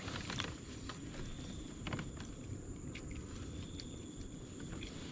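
Insects shrilling with a steady high tone, over a low rumbling outdoor background, with a few scattered clicks.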